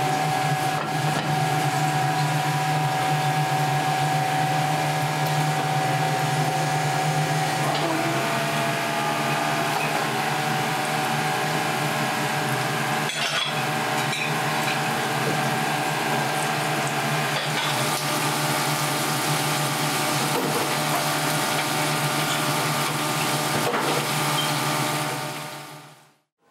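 Kitchen noise at the stove: a steady mechanical hum of gas burners and an exhaust fan under the hiss and sizzle of deep-frying oil, fading out near the end.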